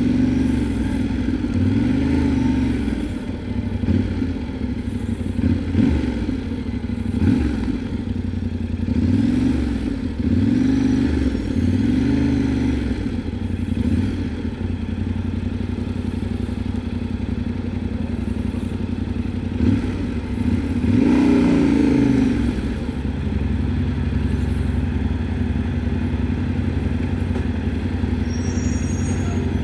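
Yamaha Tenere 700's parallel-twin engine under way, its pitch rising and falling several times with the throttle, then running steadier for the last few seconds.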